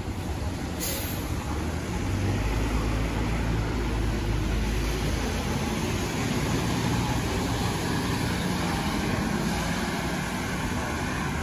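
Vehicle traffic on a wet city street: a low engine rumble swells from about two seconds in over a steady hiss of rain and tyres on wet pavement, with one brief sharp click about a second in.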